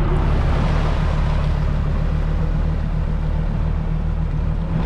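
Tractor engine running steadily with a low hum as the tractor drives through shallow sea water, with a steady rush of splashing water over it.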